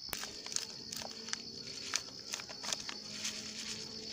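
Insects chirring in a steady high-pitched drone, with a run of sharp clicks and crinkles from a plastic instant-coffee sachet being handled.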